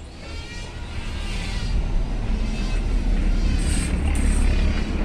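A heavy motor or engine coming up to speed over the first two seconds, its pitch rising, then running steadily with a deep rumble.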